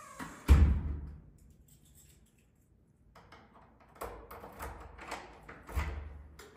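A door's lock and lever handle being worked: a heavy thump about half a second in, then after a pause a run of sharp clicks and rattles from the latch and lock, with another thump near the end.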